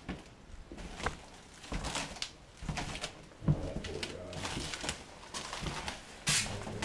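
Pigeons cooing, with scattered knocks and scuffs and a short rushing noise near the end.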